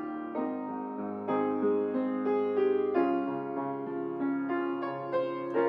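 Instrumental piano music: a slow melody with a new note every half second or so over held lower notes.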